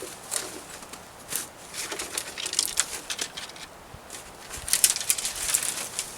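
Rustling and crackling of brush and small branches, a run of short sharp crackles loudest about five seconds in.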